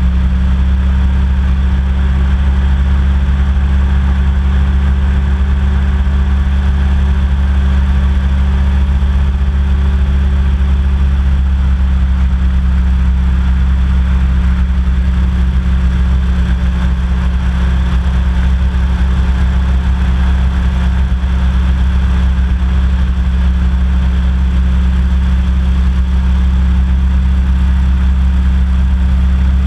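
Hovercraft engine and fan running at a steady cruise, a loud, constant low drone.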